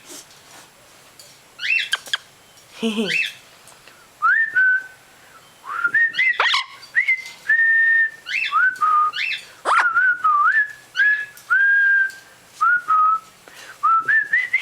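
A few short chirps, then from about four seconds in a string of clear whistled notes, each sliding quickly up and then held, forming a whistled tune.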